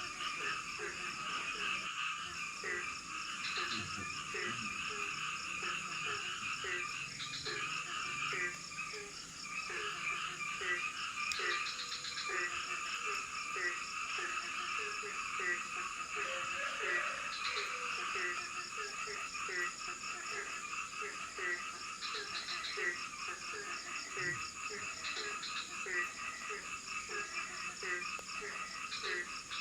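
Chorus of frogs croaking, many calls overlapping, with a low call repeating about once or twice a second. A steady high whine runs behind it.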